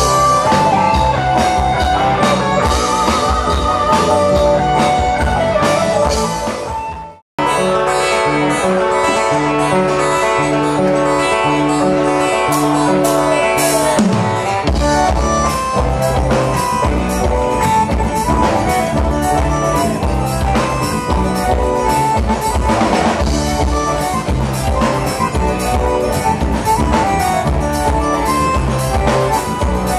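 Live band music without vocals: acoustic guitar over a drum kit. About seven seconds in the music fades and drops out for a moment, then starts again with held notes and no drums, and the drum beat comes back in about halfway through.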